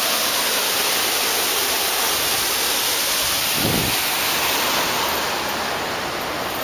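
Water pouring off a fountain wall into a shallow trough: a steady rushing splash that grows a little fainter near the end. A brief low rumble comes about halfway through.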